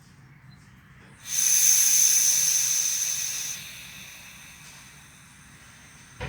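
Compressed air hissing out of the air hose as the regulator is set to painting pressure. It starts abruptly about a second in, stays loud for a couple of seconds, then drops to a quieter steady hiss, with a short click near the end.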